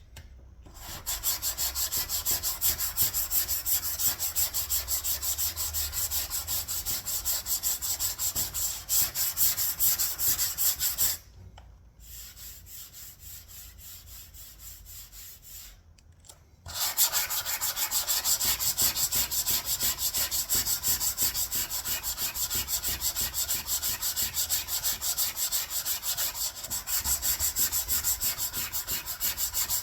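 Hand block sanding of body filler (bog) on a car panel: quick, even back-and-forth strokes of sandpaper on a sanding block. The strokes go quieter for about five seconds, from about eleven seconds in, then pick up again.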